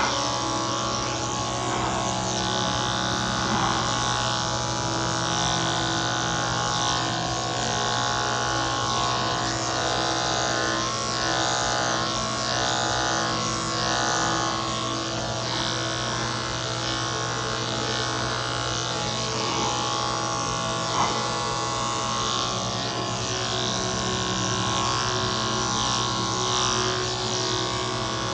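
Cordless electric dog clippers running with a steady buzz as they trim the hair on a cocker spaniel's head and ear. A single brief click about 21 seconds in.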